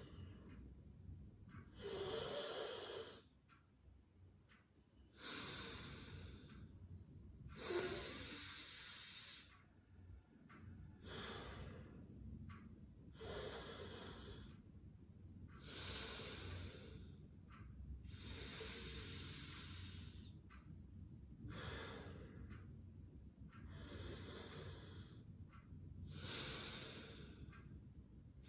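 A person breathing slowly and deeply through the nose in alternate-nostril breathing (anulom vilom pranayama). About ten soft, hissing breaths of one to two seconds each, with short pauses between them.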